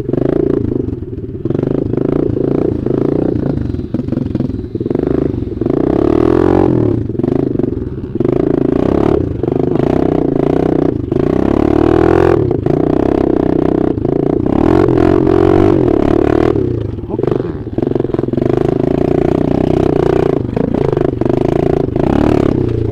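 Dirt bike engine running under load while riding, its pitch rising and falling as the throttle is opened and closed. The note dips briefly a couple of times when the throttle is shut.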